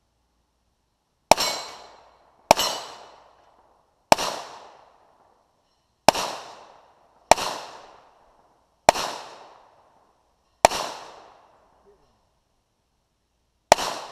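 Eight handgun shots fired at steel targets at a slow, uneven pace, one every one to three seconds. Each sharp report trails off in about a second of echo.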